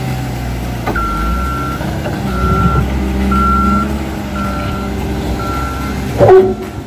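Caterpillar 930K wheel loader's engine running steadily while its reversing alarm beeps five times, about once a second, as the machine backs up. A short, loud knock near the end.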